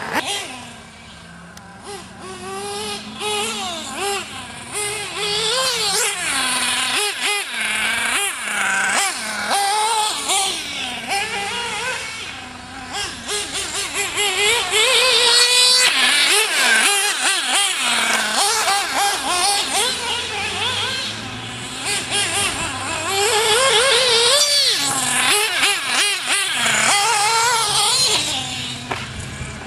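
Go-Tech .21 nitro engine of a 1/8-scale Losi RC buggy, revving up and down over and over with the throttle, its high whine rising and falling in pitch. It is fainter for a couple of seconds near the start and loudest from about halfway through.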